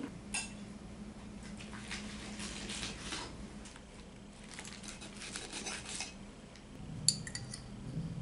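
Faint clinks and knocks of dishes and cutlery being handled on a room-service tray, with a quick run of sharper clinks about seven seconds in.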